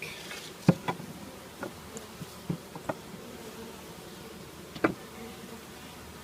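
Honeybees buzzing steadily in an open top-bar hive, with a few sharp wooden knocks as the top bars are set back in place, the loudest about a second in.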